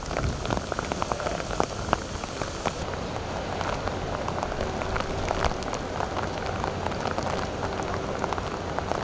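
Heavy rain falling, with many sharp raindrop ticks close by over a low steady rumble. The hiss thins about three seconds in.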